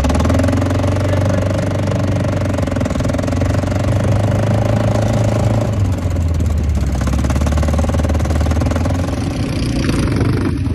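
Quad bike (ATV) engine running as it is ridden, a steady low hum whose note drops about six seconds in.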